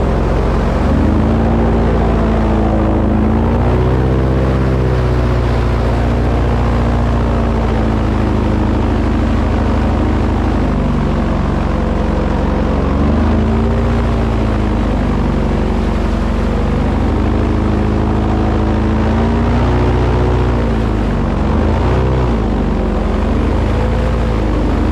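An engine running steadily at a high level, its pitch dipping and rising several times as it is throttled back and up.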